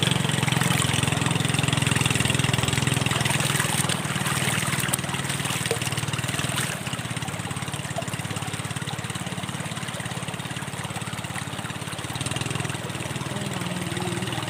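Small motorised boat engine running steadily, a low pulsing hum that drops in level about seven seconds in.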